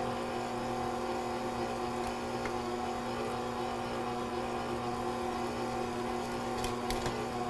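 A 600-watt Smeg stand mixer running at a steady speed with its flat beater turning cookie dough: an even motor hum with a few faint ticks near the end.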